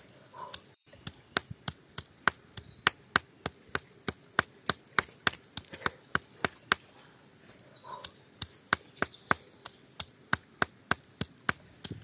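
A hand-held stone pounding food on a large rock: sharp stone-on-stone knocks, about three a second, with a short pause about two-thirds of the way through.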